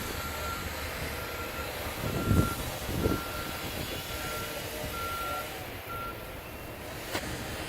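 Backup alarm of a construction vehicle beeping repeatedly at one pitch over the steady rumble of heavy machinery; the beeping stops about five seconds in. Two heavy thuds, the loudest sounds, come about two and three seconds in.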